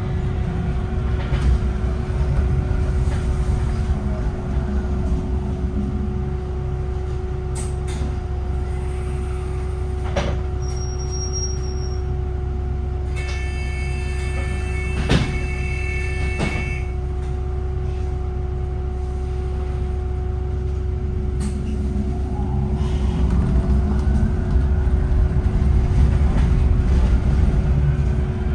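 VDL Citea SLFA-180 hybrid bus heard from inside: a steady whine, the odd sound of its hybrid battery system, holds over the low rumble of the bus. About halfway through, a chime-like high tone sounds for a few seconds, and near the end a rising whine comes in as the bus gets louder and picks up speed.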